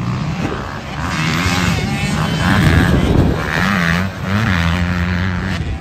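Dirt bike engine revving, its pitch rising and falling as the rider works the throttle. It is loudest near the middle and briefly drops about four seconds in.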